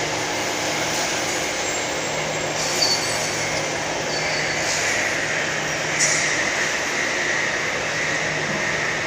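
Steady machinery noise, with a few brief high squeals about three, five and six seconds in.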